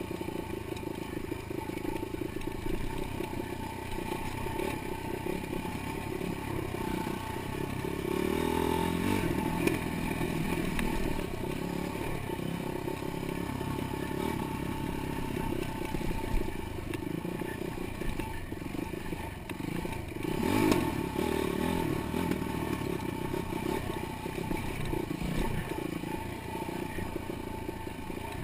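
Dirt bike engine running continuously, with a single brief loud knock about three-quarters of the way through.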